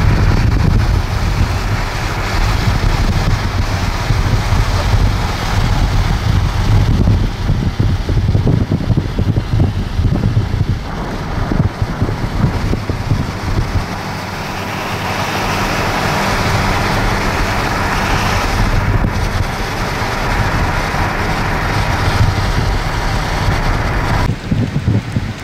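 Strong wind buffeting the microphone: a loud, gusty rumble with a rushing hiss over it.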